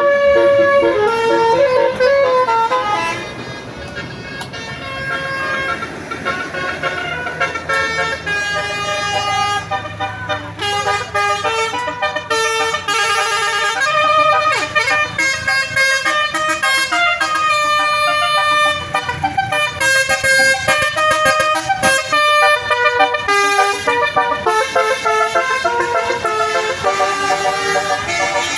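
Bus telolet horns of the basuri type playing quick melodies, one held note after another jumping in pitch. There is a quieter spell a few seconds in.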